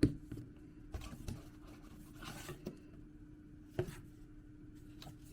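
Product packages handled by hand: a few light knocks and taps, with a brief rustling scrape about halfway through, over a faint steady hum.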